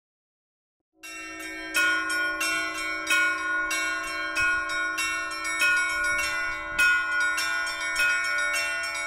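A new set of church bells rung together, starting abruptly out of silence about a second in: a loud strike about every second and a quarter over a fast run of lighter, higher bells, with a low hum held underneath.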